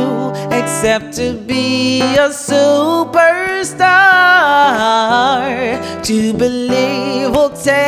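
A woman singing soul, sliding and wavering through long held notes, over acoustic guitar accompaniment.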